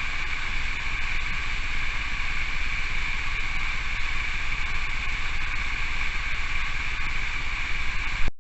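Steady rushing of falling water from a cascade, an even unbroken roar that cuts off suddenly near the end.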